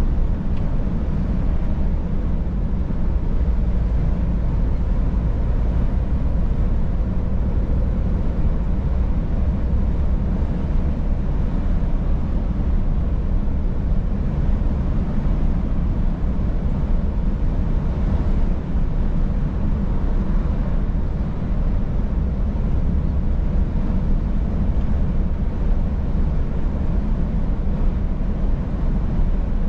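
Scania S500 truck's 13-litre straight-six diesel running steadily on the move, with road noise, as a low, even drone.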